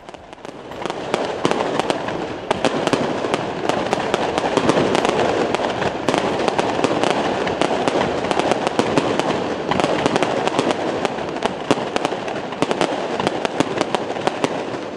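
Fireworks display: dense, continuous crackling packed with many sharp pops and bangs, swelling in over the first second.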